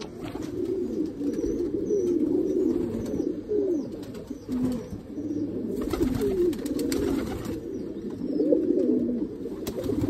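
Several domestic pigeons cooing together in a loft, a steady overlapping warble of low calls rising and falling in pitch. A brief rustling noise comes in around six to seven seconds in.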